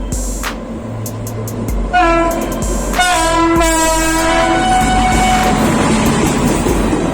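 Indian Railways train horn sounding two blasts, a short one followed by a longer one lasting about two and a half seconds. After that comes the rumble and clatter of the train running through.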